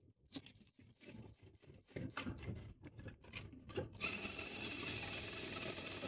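Scattered clicks and knocks of hand-tool work on a furnace's sheet-metal cabinet, then from about four seconds in a steady scratchy rustle of a sweatshirt sleeve rubbing over the microphone.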